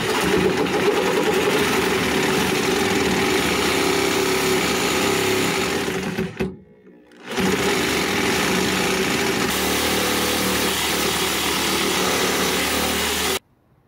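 Reciprocating saw running steadily as it cuts the head off a steel leaf-spring bolt that cannot be backed out. It stops for about a second midway, starts again, then stops abruptly just before the end.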